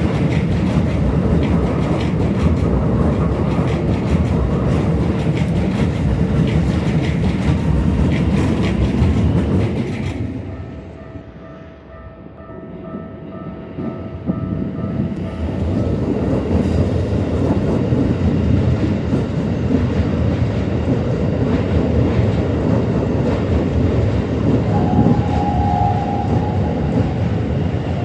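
Two Keikyu electric trains passing a level crossing one after the other, with steady running noise and clattering wheels on the rail joints. About ten seconds in there is a brief lull in which the crossing's warning bell rings in steady tones, then the second train's running noise builds again.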